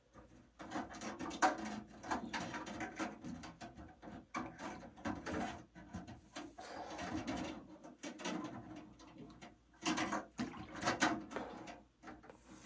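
Kitchen tongs and fingers clinking and rattling small metal parts against each other and the stainless-steel tank of an ultrasonic cleaner as they are fished out of soapy water, in irregular bursts with one sharp metallic clink about five seconds in.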